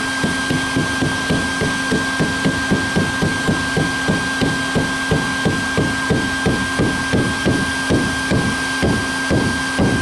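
Rubber mallet tapping metal above-ground pool top rail pieces together, a steady run of dull taps about four a second, over the continuous whine of a vacuum cleaner that is still running.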